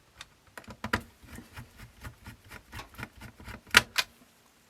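Light clicks and taps of plastic parts as the cassette deck's mechanism is handled, with two louder sharp clicks close together near the end.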